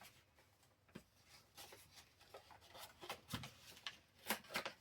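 Paper being handled and folded: faint, scattered rustles and small clicks, with a soft knock on the table a little over three seconds in and a few crisper rustles near the end.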